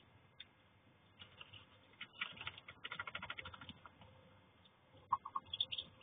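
Newly hatched ducklings moving under their brooding mother in a straw nest: a faint run of rapid rustling and scratching about two seconds in, then a few short peeps near the end.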